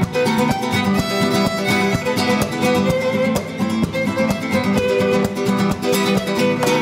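Background music led by plucked acoustic guitar, with dense, evenly paced notes.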